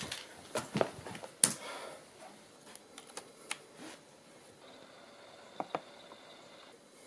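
Scattered clicks and taps of a laptop being handled, its keys and touchpad pressed, the loudest click about a second and a half in. In the second half a faint, high, steady tone sits under the clicks.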